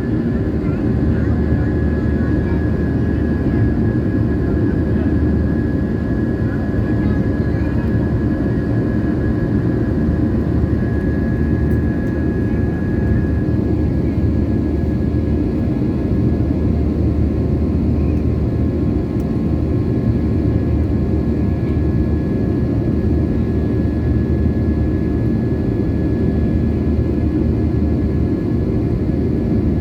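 Airliner cabin noise heard from a passenger seat: the steady roar of jet engines and airflow, with a faint thin steady whine above it.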